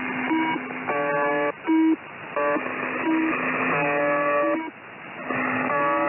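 UVB-76 'The Buzzer' shortwave signal heard through radio static: harsh buzzing tones that jump in pitch several times a second over a steady hiss. The tones drop out briefly twice.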